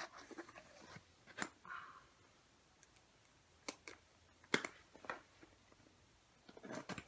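Hands working a wrapped gift box open: faint, scattered taps and clicks, with a short scrape about two seconds in.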